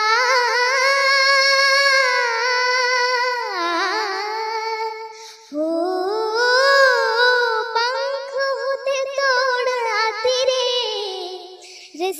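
A young girl singing a Hindi song unaccompanied: two long phrases of high held notes with a wavering vibrato, broken by a short breath about five and a half seconds in.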